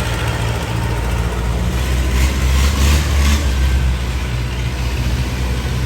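Rice combine harvester's diesel engine running steadily, with a few short rushes of noise about two to three and a half seconds in.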